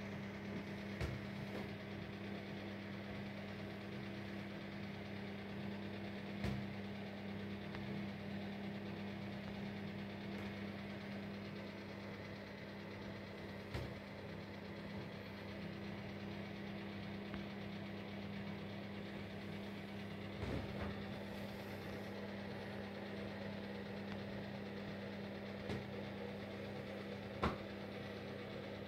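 Steady low machine hum, with a few scattered short knocks.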